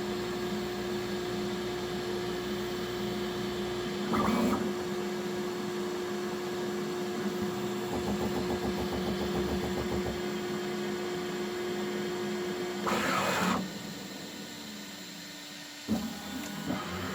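Bambu Lab X1C 3D printer running its extrusion calibration: a steady hum of fans and a steady tone, broken by a short, louder rushing burst about four seconds in and another near thirteen seconds. At that second burst the tone stops and the sound drops quieter, until a sharp click near sixteen seconds starts irregular movement sounds.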